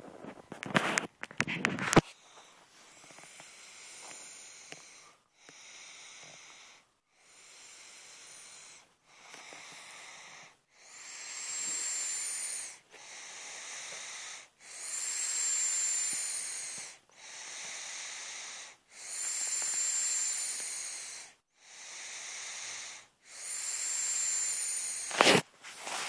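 Slow snoring breaths, about one every two seconds, alternating quieter and louder; the louder ones carry a thin, high-pitched whistle. A few sharp clatters of handling noise sit in the first two seconds and again near the end.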